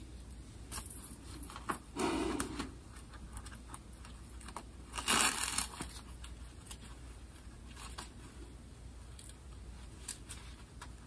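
Close handling noise of a coiled metal wire being threaded into a denim jeans waistband: small metallic clicks and jingles with rustling of the fabric, and a louder rustle about five seconds in.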